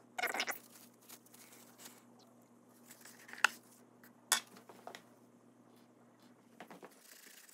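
Glass ink bottle and fountain pen being handled on a desk: a brief scuffle at the start, then a few sharp clicks and taps of glass and plastic, the loudest about three and a half seconds in.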